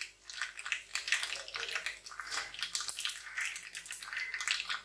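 Mustard seeds and dry red chillies sizzling in hot oil, with a dense, irregular crackle of small pops as the seeds splutter.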